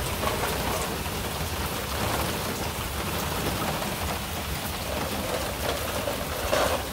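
Heavy rain falling steadily onto the ground and paving, with one short, louder sound near the end.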